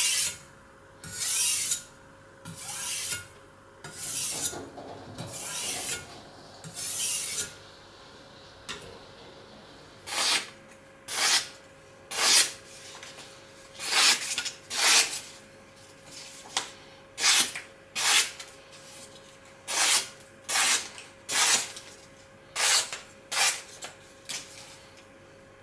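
Steel cleaver blade scraped back and forth across a whetstone in about six long strokes. After a short pause comes a quick series of short, crisp swishes as the freshly sharpened edge slices through sheets of paper to test its sharpness.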